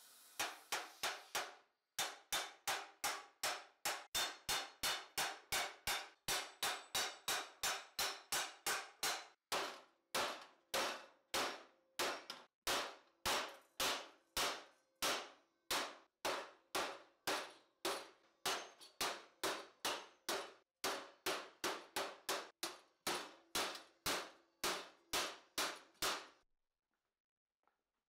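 Hammer striking a red-hot steel helmet edge on a steel stake: steady metallic clangs at about two to three blows a second, stopping a couple of seconds before the end.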